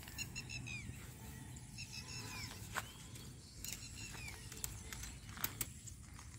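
Barbed wire being handled and twisted around a wooden fence post, giving a few sharp clicks, over a faint outdoor background with birds chirping.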